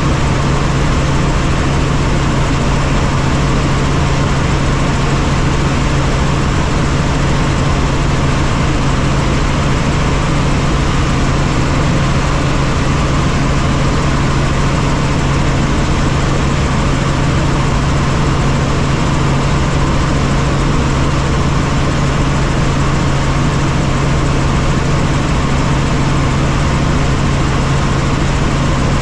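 Helicopter engine and rotor noise inside the cabin in level flight: a loud, steady drone with a strong low hum that does not change.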